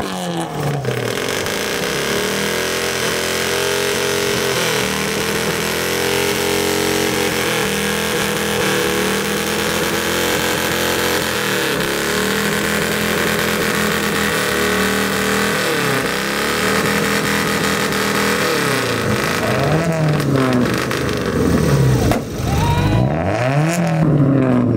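Car engine with a loud exhaust revved hard and held at high revs, then blipped repeatedly near the end, the pitch dropping and climbing again with each throttle stab.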